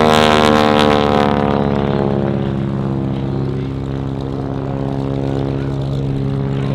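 Boeing Stearman biplane's radial engine and propeller at full power in a close pass, loudest about a second in, the note falling as it moves away and then holding steady.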